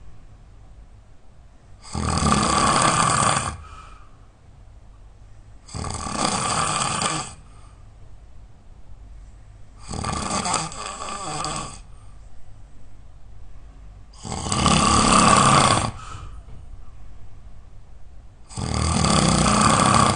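A person snoring really loud: five long snores, each about a second and a half, coming about every four seconds.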